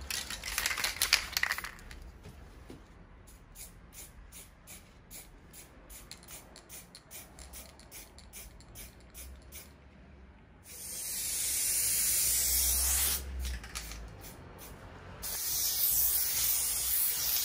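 Aerosol spray-paint can hissing in two long bursts, the first about ten seconds in and the second near the end, with a few short hisses at the start. Between them, a run of even ticks about three a second.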